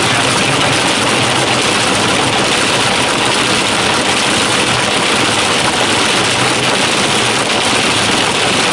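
Cloth brush strips of a Ryko Softgloss XS soft-touch car wash spinning and slapping across a car's windshield with water spray, heard from inside the car as a loud, steady wash of noise.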